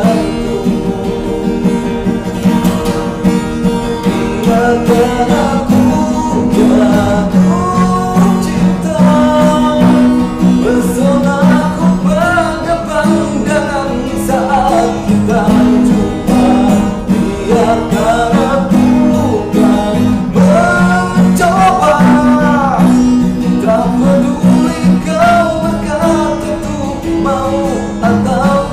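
A man singing a slow song with strummed acoustic guitar; the guitar plays alone for the first few seconds before the voice comes in.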